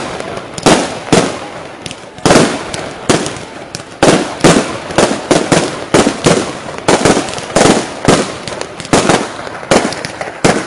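Aerial fireworks bursting in a series of loud bangs. There are a few spaced bangs in the first four seconds, then a quicker run of about two a second.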